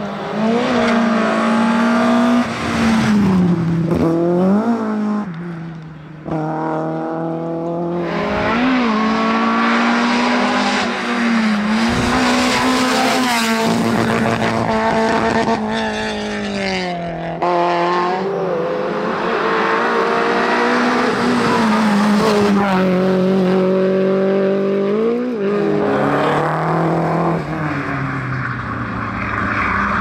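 Rally car engines revving hard one after another, each climbing in pitch through a gear and dropping sharply at the shift, held at high revs as the cars accelerate past close by.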